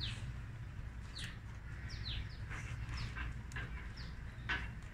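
Small birds chirping: a loose series of short chirps, each sliding quickly down in pitch, several in a few seconds.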